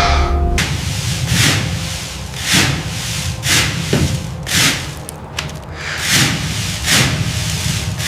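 Repeated abrasive rubbing strokes, about one a second, each a short hiss.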